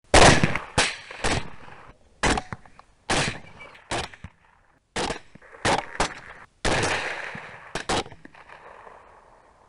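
A rapid string of about a dozen rifle shots, each a sharp crack with a short echoing tail, coming irregularly over about eight seconds. Some tails are cut off abruptly.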